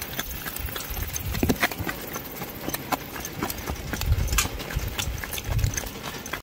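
Hooves of a harnessed driving pony and a young filly walking on a dirt track: an irregular clip-clop of sharp clicks over a low rumble.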